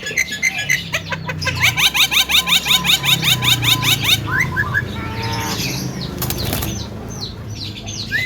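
Javan myna calling and flapping its wings: a fast run of rising chirps, about six a second, lasts a couple of seconds, then gives way to scratchy chatter and a few short falling whistles near the end.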